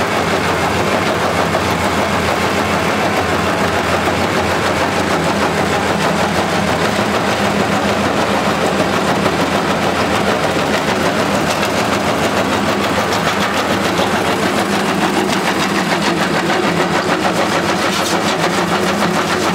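Bobcat compact track loader's diesel engine running steadily under load while its MB-L160 crusher bucket crushes rubble and drops crushed stone onto the pile.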